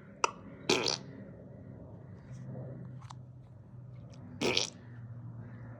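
Two short fart sounds, the first about a second in and the second about four and a half seconds in, with a sharp click just before the first and a low steady hum underneath.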